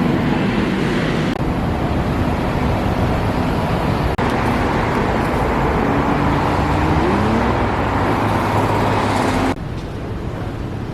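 Road traffic and vehicle engine noise running steadily, in several short stretches that change abruptly, with a short rising tone about seven seconds in. The sound drops quieter near the end.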